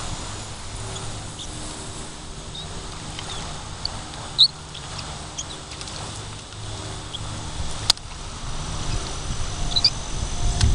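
Outdoor pond-side ambience: scattered short, high bird chirps over a low wind rumble on the microphone that grows louder toward the end, with one sharp click about eight seconds in.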